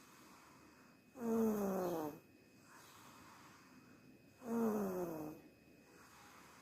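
A sleeping child snoring, two snores about three seconds apart, each about a second long and falling in pitch.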